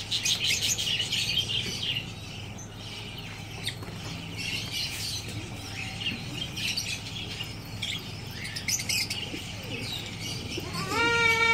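A flock of fantail pigeons fluttering and flapping their wings as they crowd in to feed, loudest in the first two seconds, with small birds chirping throughout. A short steady-pitched call sounds near the end.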